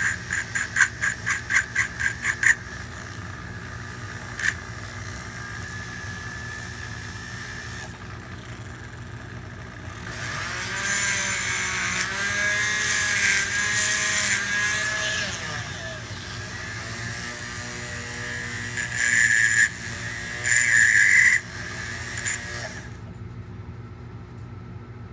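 Foot-controlled variable-speed flex-shaft rotary tool whining as its shaped burr grinds a pocket into the worn hard rubber bite plate of a metal Otto Link saxophone mouthpiece. The cutting comes first in quick short strokes, about four a second, then in longer passes with the motor's pitch wavering as the speed changes. The tool stops shortly before the end.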